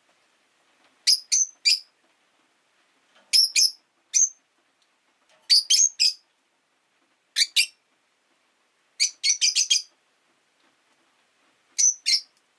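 Rosy-faced lovebirds giving short, high-pitched chirps in quick clusters of two to six, with pauses of a second or two between clusters.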